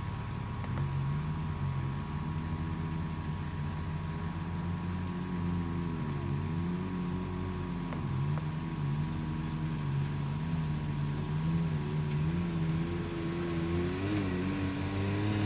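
UTV engine running, its pitch dropping briefly and climbing back three times as the throttle is eased off and reapplied.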